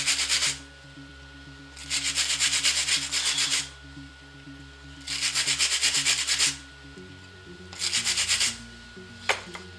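Hand wire brush scrubbing a freshly welded steel bolt and nut clamped in a bench vise, cleaning off the weld. It goes in bouts of rapid back-and-forth strokes with short pauses between, and there is one sharp click near the end.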